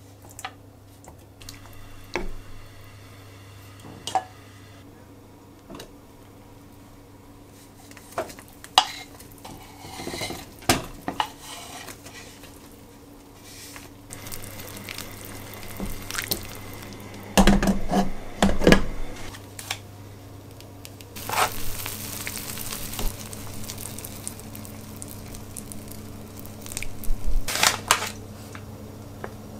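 Kitchen cooking sounds: sliced vegetables and mushrooms tipped off a wooden cutting board into a saucepan, with scattered knocks and clinks of utensils against the pot and a glass bowl, over a steady low hum.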